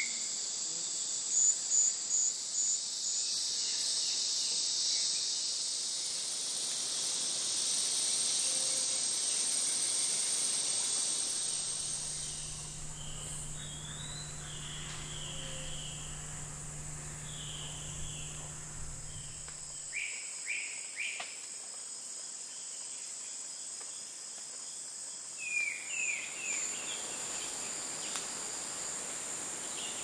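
Tropical rainforest ambience: a steady high insect chorus, with short chirping bird calls over it from the middle on, and a low steady hum for several seconds in the middle.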